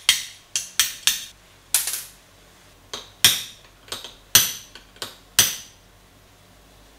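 Hammer tapping a pin punch to drive the roll pins out of a distributor shaft: about a dozen sharp metallic taps, quick at first and then more spaced out, each with a brief ring.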